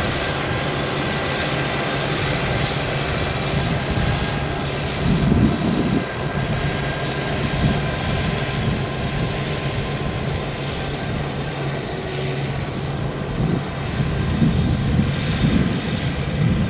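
Kubota 95 diesel engine of a crawler-track rotary tiller running steadily while the tiller churns wet paddy mud, a steady drone that swells louder a few times.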